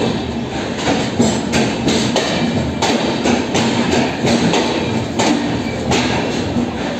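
Express train's sleeper coaches rolling slowly over jointed rails, the wheels knocking hard at each rail joint, about three clattering thuds a second over a steady low hum. The heavy knocks are the sign of bad rail joints.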